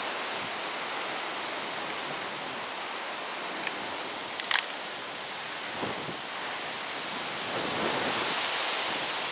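Steady wind rustling through a tree's leaves and branches, swelling a little near the end, with a few brief clicks around the middle.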